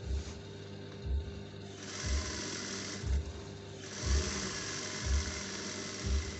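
Juki industrial sewing machine stitching in two short runs, one about two seconds in and a longer one from about four seconds, over background music with a steady bass beat about once a second.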